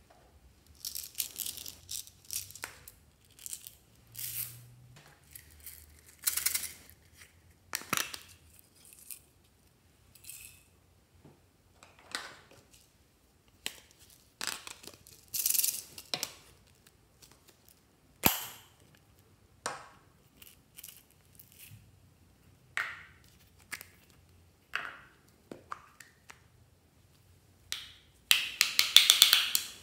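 Close-up handling of plastic squishy toys and small props over glass dishes of slime: a string of separate rustles, crinkles and light taps with short gaps. Near the end comes a longer, louder crackling rustle as a blue squishy toy is squeezed and worked over the dish.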